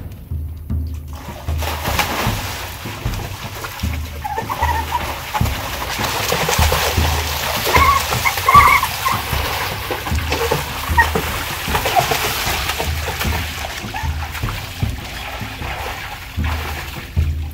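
Water rushing and splashing: a person plunges off a water slide into a swimming pool, with the loudest splash about eight seconds in. Background music with a steady low beat runs underneath.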